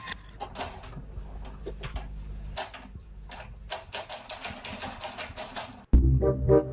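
Rapid, irregular clicking over a low hum; music with a beat cuts in near the end.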